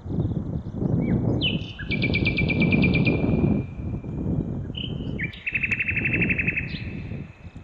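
A songbird singing two phrases, each a short clear note running into a rapid, even trill. Underneath, wind buffets the microphone with a loud, gusting rumble.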